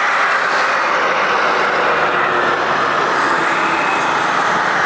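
Airbus A350-1000 taxiing, its Rolls-Royce Trent XWB turbofans at low taxi thrust: steady jet-engine noise that holds level without rising or falling.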